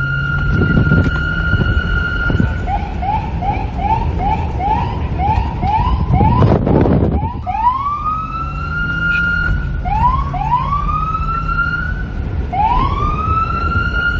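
NYPD police car's electronic siren switching modes. It holds a steady high tone, then yelps in quick rising chirps about three times a second, then wails in slower rising sweeps that level off and hold. A brief loud rush of noise, such as a gust of wind, comes about halfway through, over a low rumble.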